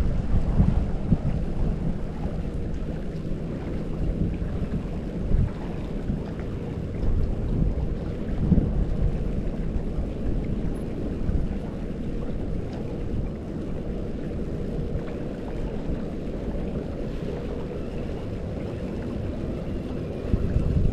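Wind buffeting an action camera's microphone outdoors: a steady low rumble with a few brief louder gusts.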